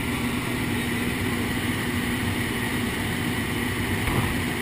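Small jump plane's engine running steadily in flight, heard from inside the cabin as a constant drone with a low hum and rushing air noise.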